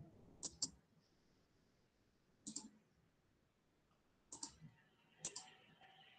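A few computer mouse clicks, some in quick pairs, over near silence.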